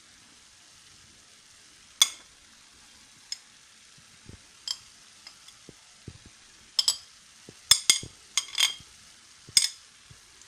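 A metal kitchen utensil clinking against a plate and a stainless steel sauté pan as chopped herbs are scraped into it: scattered sharp clinks with a short ring, one about two seconds in and a cluster near the end.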